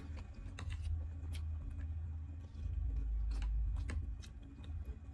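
Eating sounds: a metal spoon and fork clicking and scraping on a plate of rice and fish, scattered sharp clicks every half second or so, over a steady low hum.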